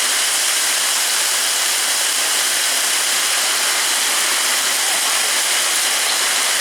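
Heavy monsoon rain pouring down in a steady, dense hiss with no letup.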